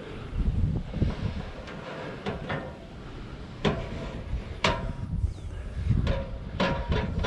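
Scattered knocks and clunks from construction work, about five sharp ones in the second half, over a low rumble of wind on the microphone.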